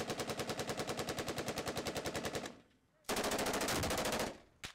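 Automatic machine-gun fire in long bursts: one of about two and a half seconds at roughly thirteen shots a second, a short pause, then a second burst of about a second, and another just starting at the end.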